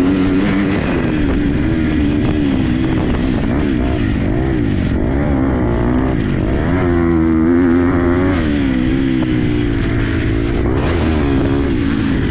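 Onboard sound of a 2022 KTM 250 SX-F single-cylinder four-stroke motocross bike ridden hard around a dirt track, the engine revving up and dropping back again and again as the rider works the throttle through corners and straights.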